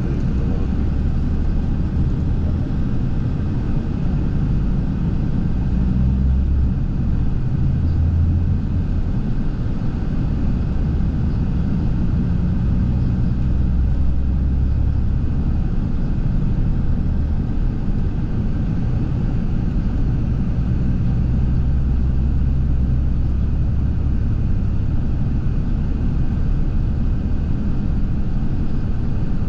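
Steady low rumble of a moving vehicle, swelling and easing slightly without a break.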